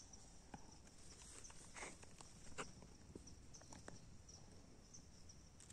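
Near silence: a few faint rustles and ticks in dry leaf litter over a steady, faint, high-pitched insect drone.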